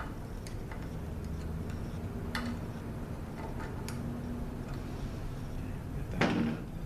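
Scattered light clicks and taps of small tools and parts working on a Ford 6R80 transmission valve body while the dampers are being removed, with a louder knock about six seconds in, over a low steady hum.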